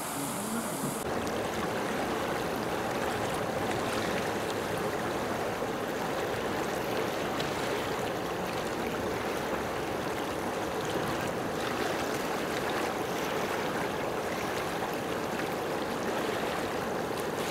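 A steady rush of moving water begins about a second in and holds an even level, with no distinct splashes or other events.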